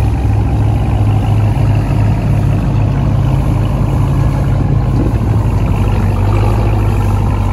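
Ram TRX's supercharged 6.2-litre Hemi V8 running loud and deep through its cut, louder exhaust. Its note rises slightly for a couple of seconds in the middle, then settles back to a steady rumble.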